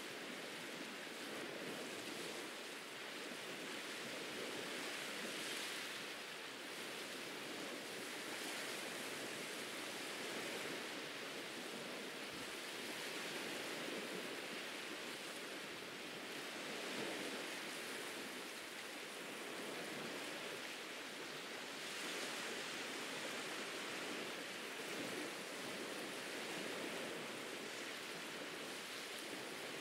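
Ocean surf on a beach: a steady rush of waves that swells and eases every few seconds.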